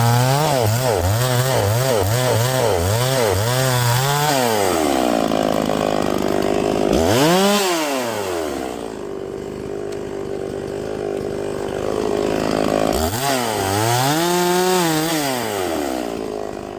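Two-stroke chainsaw cutting wood, its engine pitch dipping and recovering over and over as the chain bites under load. About seven seconds in it revs up and drops away, runs more evenly for a few seconds, then bogs and recovers again as it cuts.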